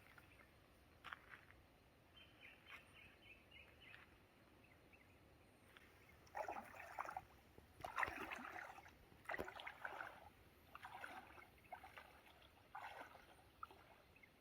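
Faint creek water splashing and sloshing in irregular short bursts, starting about six seconds in after a quieter stretch.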